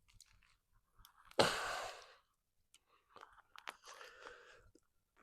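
A man's short, forceful exhale of effort about a second and a half in, then faint clicks and rustling of climbing gear.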